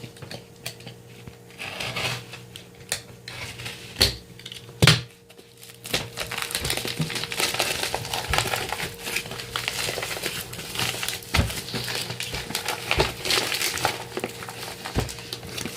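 Parcel packaging being torn open by hand, crinkling and rustling, with two sharp knocks about four and five seconds in, then dense crackling rustle for the rest.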